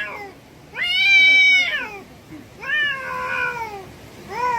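Domestic cat yowling in long, drawn-out calls, three in a row: the first holds and then drops, the second falls in pitch, and the third starts near the end. These are the threatening yowls of a cat fight.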